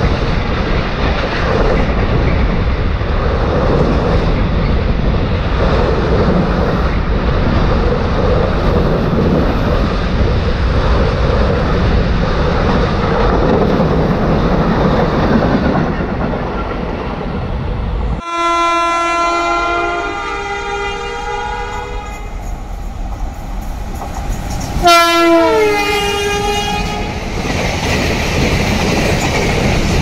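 A fast freight train rushing past on the near track, its noise easing off a little past halfway. Then a WAG-12 electric locomotive's horn sounds twice: a blast of several tones together, then a second whose pitch drops as the locomotive passes. Near the end, freight wagons run past.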